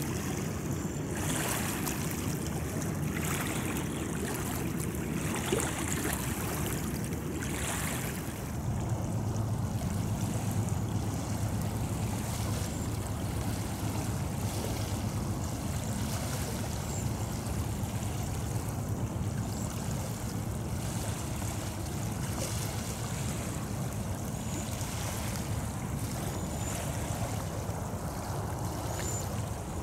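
Distant diesel freight train rumbling past across the river: a steady low drone that strengthens about eight seconds in. It comes with water lapping, and with gusts of wind on the microphone in the first several seconds.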